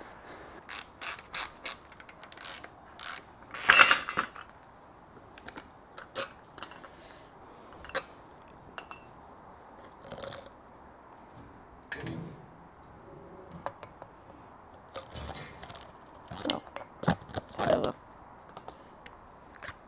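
A ratchet clicking in short runs as the top nut of a Mk2 Scirocco rear strut is undone, then metallic clinks and knocks as the loose coil spring and top-mount parts come off the shock absorber. The loudest clatter comes about four seconds in, with another cluster of knocks near the end.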